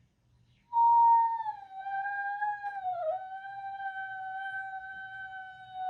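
Siberian husky howling: one long held note that starts about a second in, sags a little in pitch, dips briefly about three seconds in, then carries on steadily.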